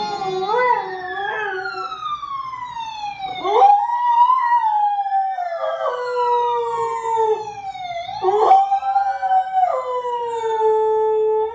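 Husky howling in long, sliding notes along with a wailing siren from the television, the two overlapping as their pitches rise and fall.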